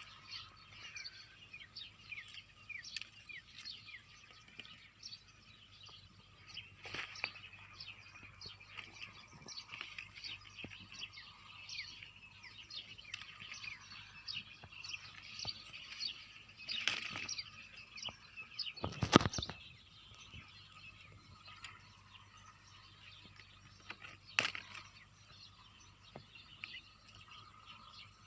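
Many small birds chirping and twittering together, faint and busy, with a few sharp knocks breaking in; the loudest knock comes about two-thirds of the way through.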